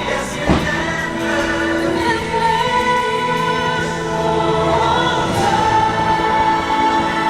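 Holiday show music played over the park's loudspeakers: a choir singing long held notes over an orchestra, with a single firework boom about half a second in.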